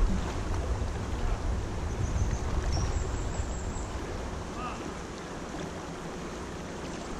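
Shallow river rushing steadily over a riffle, with wind buffeting the microphone as a fluctuating rumble that eases off after about four seconds.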